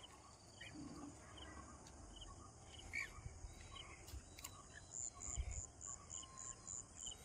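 Faint outdoor ambience: a cricket chirping in an even series of short, high pulses, about three or four a second, starting about five seconds in. Scattered faint chirps and a low rumble sit beneath it.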